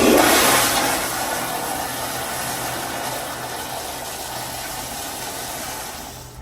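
Commercial flushometer toilet (Zurn EcoVantage) flushing: a sudden loud rush of water that is strongest in the first second, settles to a steady, lower rush, then fades out near the end as the valve closes.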